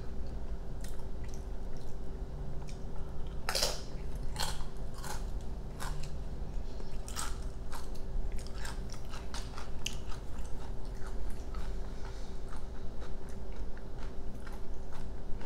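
Eating sounds: crunching a tortilla chip, then biting into and chewing a burrito, with many sharp wet mouth clicks.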